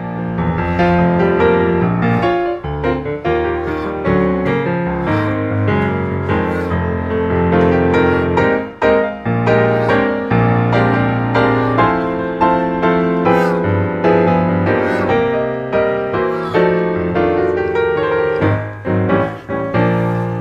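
Piano music, steady chords and a melody played throughout.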